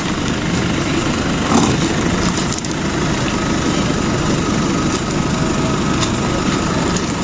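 Steady engine and road noise of a moving vehicle, with a faint high steady whine in the second half.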